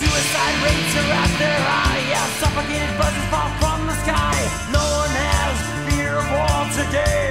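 1980s thrash metal recording: the full band comes back in at the start, with distorted guitars, bass and pounding drums, and a high lead line of bending, wavering notes over them, without words.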